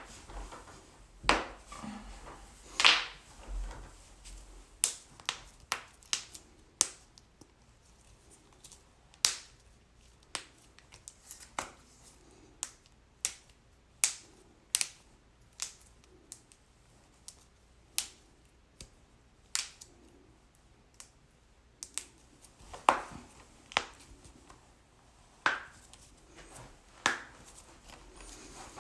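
Joints cracking: a long, irregular series of sharp pops and cracks, some single and some in quick runs.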